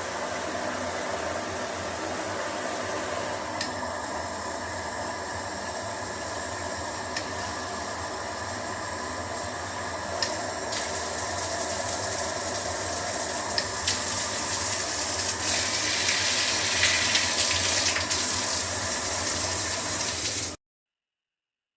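Water spraying from a shower head in a steady rush that grows louder about halfway through and again a few seconds later, then cuts off suddenly near the end.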